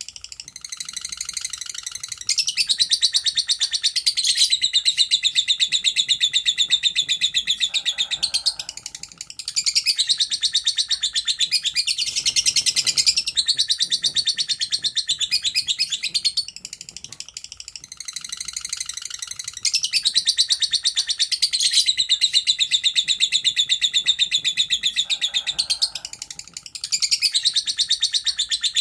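Lovebird giving its long 'ngekek' chatter: runs of rapid, high-pitched chirping notes, each run lasting several seconds, with short breaks between.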